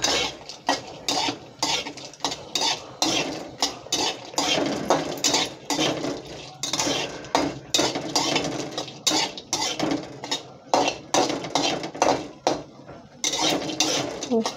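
A metal spatula scrapes and clinks against a metal kadhai in repeated stirring strokes, about two a second, turning whole black and green cardamom pods as they fry in a little oil. There is a brief lull near the end.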